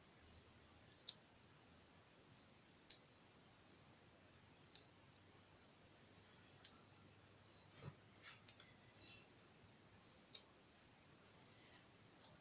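Opossum making sharp single mouth clicks, about one every two seconds, seven in all: the clicking call it uses to call to others of its kind.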